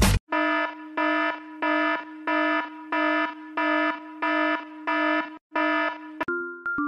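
Alarm sound effect: a harsh, buzzing warning beep repeated about nine times, roughly one and a half beeps a second. Near the end a short tinkling chime tune starts.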